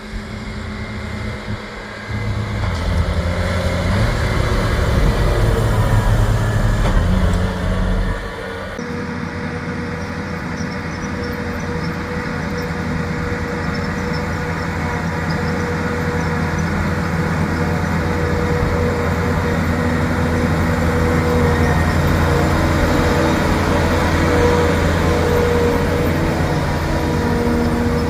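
A heavy vehicle engine running steadily. Its sound changes abruptly about eight and a half seconds in, then holds steady and grows slightly louder.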